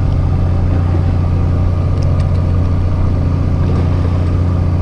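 Fishing boat's engine running steadily, a loud low hum with even overtones.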